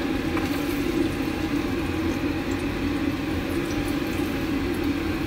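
Chopped garlic frying in hot oil in a metal pan: a steady sizzle.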